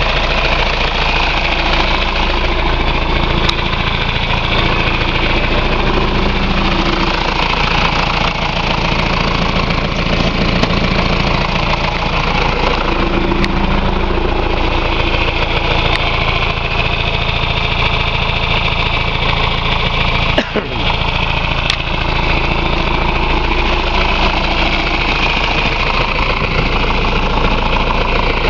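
John Deere 2355 tractor's three-cylinder diesel engine idling steadily, running again after being split and reassembled with a new clutch. There is a brief knock about twenty seconds in.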